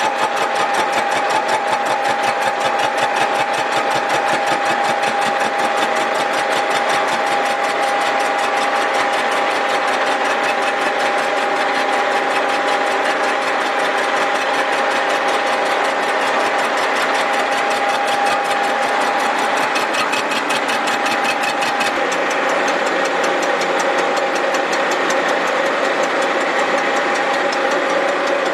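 Milling machine face-milling (decking) the cast-iron deck of a Willys L-134 engine block flat: a loud, steady, rapid clatter of the cutter's teeth over a steady hum. About 22 seconds in the steady tone steps lower.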